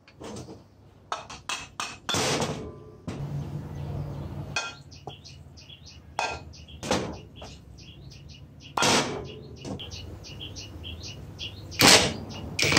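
Metal parts of an old Makita groove cutter clicking and knocking as the armature with its bearing is handled and fitted into the gear housing. There is a string of light clicks and several louder knocks, the loudest near the end.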